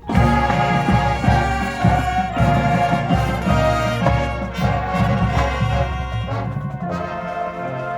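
Marching band brass section coming in loudly and suddenly, with trumpets and trombones playing full chords over repeated low drum hits. The sound eases somewhat near the end.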